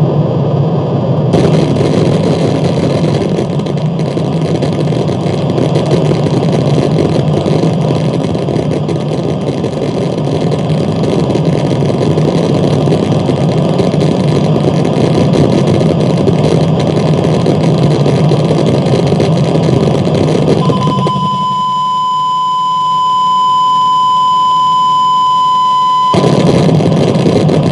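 Harsh noise music: a loud, dense wall of distorted noise, heaviest in the low range, with a faint steady high tone running through it. About three-quarters of the way through, the noise cuts out, leaving a single loud, steady high beep-like tone for about five seconds. The noise wall then returns abruptly.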